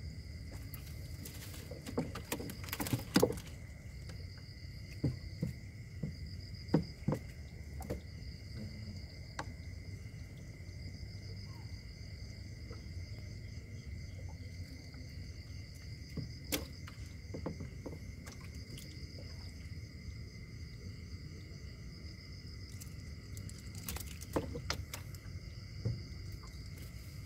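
Night insects trilling steadily at two pitches, one high and one higher, over a low rumble. Scattered short knocks and splashes come from net work in the water, several close together early on and a few more later.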